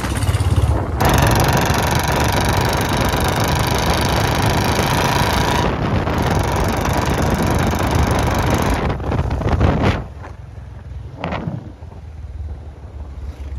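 Royal Enfield Bullet 350 J-series single-cylinder engine running through a short-bottle 'Mini Punjab' aftermarket silencer while riding at speed, with loud wind rush. About ten seconds in the sound drops much quieter, leaving a low engine rumble.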